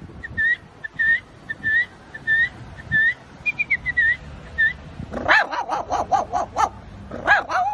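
A man imitating a dog with his voice. First comes a string of short, high, whistled whimpering squeaks. Then, about five seconds in, a quick run of yapping barks, with one more yap near the end.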